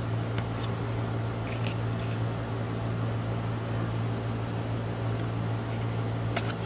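Steady low room hum, with a few faint clicks and rustles of trading cards being handled and slid into a plastic sleeve.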